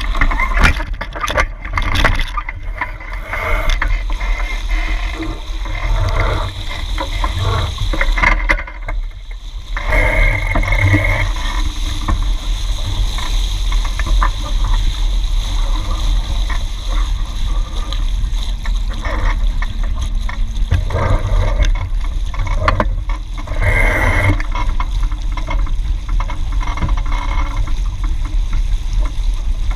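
Water rushing and splashing along a Hobie 16 catamaran's hulls as it sails, with steady wind rumbling on the microphone. Irregular splashes stand out in the first few seconds.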